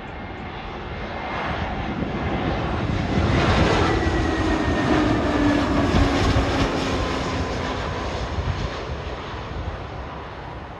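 Lufthansa Airbus A320 jet airliner on final approach with its landing gear down, passing low overhead. Its engine roar builds to a peak about halfway through and then fades, with a whine that drops in pitch as it goes by.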